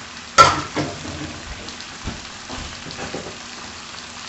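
Shrimp and vegetables sizzling steadily in a hot stir-fry pan. A sharp knock of the stirring utensil against the pan comes about half a second in, followed by lighter knocks and scrapes as the food is stirred.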